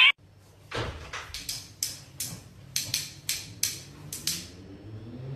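A series of about a dozen sharp knocks, unevenly spaced, starting about a second in and ending shortly before the end.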